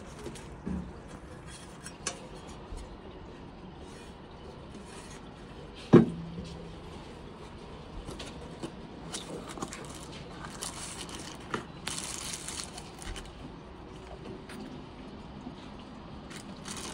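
Handling noises from unpacking a model engine kit: scattered clicks and taps of parts and packaging, with a single loud knock about six seconds in that leaves a short low ring. Brief rustling of packaging comes twice past the middle.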